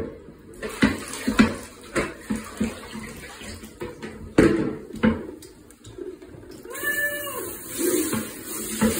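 Knocks and bumps of a plastic basin being handled in a bathtub, then from about seven seconds in a handheld shower sprays water into the basin, with a cat meowing once as the water starts.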